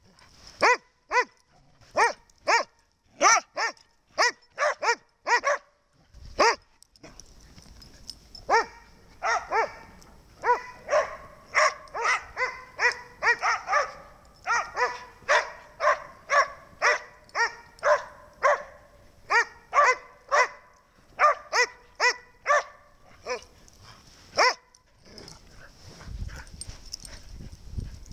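Border collie barking over and over in short, sharp barks, roughly two a second, coming faster and thicker through the middle stretch.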